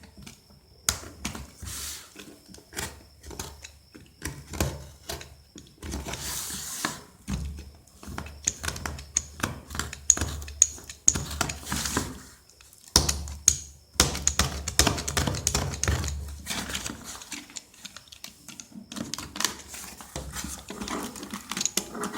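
Hands handling and opening a phone's packaging: irregular clicks, taps and knocks, with stretches of rustling and crinkling.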